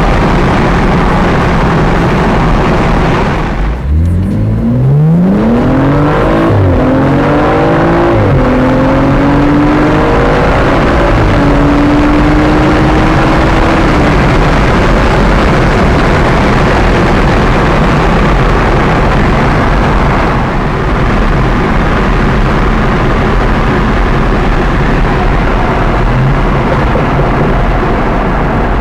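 BMW M235i accelerating hard through the gears: the engine note rises in pitch from about four seconds in and drops at two quick upshifts, then climbs slowly before fading into a loud, steady rushing noise.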